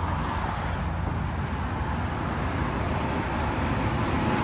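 Steady low rumble of road traffic, with a faint steady high tone coming in near the end.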